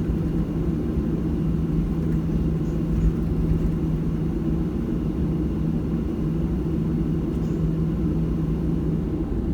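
Steady in-cabin drone of a Boeing 737-700's CFM56 jet engines at low taxi power: a low rumble with a constant hum.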